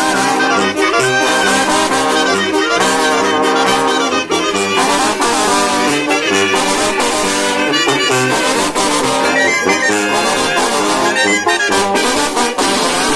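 Mexican banda brass band playing: trombones and trumpets over a low, stepping bass line.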